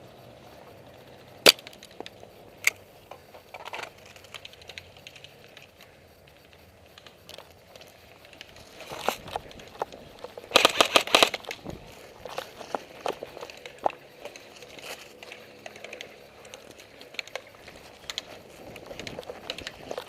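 Airsoft guns firing: two single sharp shots in the first three seconds, then rapid bursts of fire about nine to eleven seconds in, with scattered lighter clicks around them.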